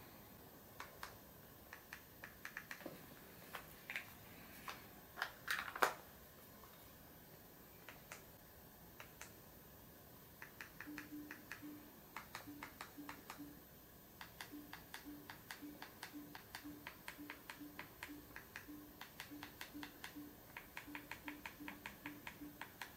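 Soft clicks of remote-control buttons being pressed to navigate the mini projector's menu. A few scattered presses come first, then from about ten seconds in a quick run of two to three presses a second, many with a short low beep.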